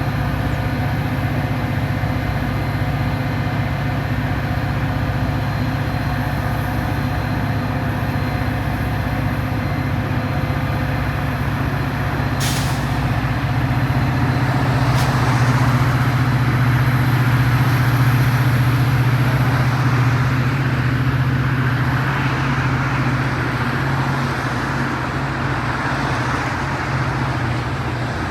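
Metra diesel locomotive running with a steady low engine hum, growing a little louder in the middle, with a brief sharp burst about twelve seconds in and a fainter one a few seconds later.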